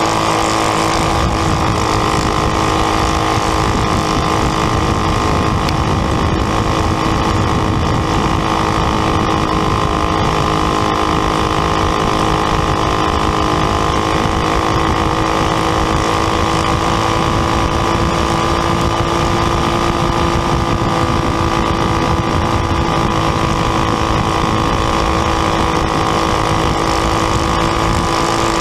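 Winged champ kart engine running hard and steady, heard onboard at close range, its note holding a nearly constant pitch through the run.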